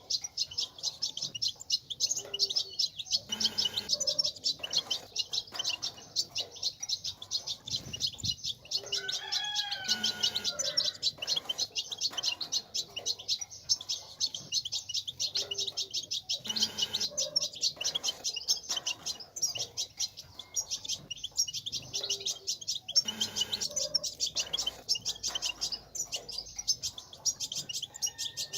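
European goldfinch twittering: a rapid, unbroken stream of high chirps and trills, with a few lower sliding whistled notes about ten seconds in.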